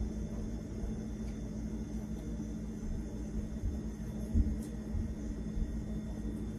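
Steady low rumble with a hum, broken by a soft low thump about four seconds in and a couple of faint light clicks.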